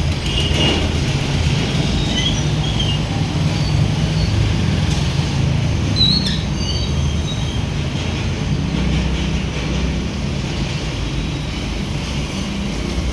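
Steady low rumble of vehicle traffic, with a few faint high chirps on top.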